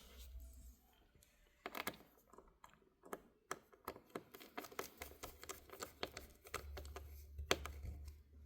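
Light, irregular clicks and taps of small tools and parts being handled on a MacBook Pro laptop during reassembly. They start about two seconds in and come several times a second.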